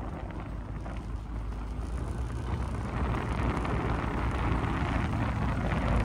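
Wind buffeting the microphone and water rushing past a moving boat, over a low motor drone; the rush grows gradually louder.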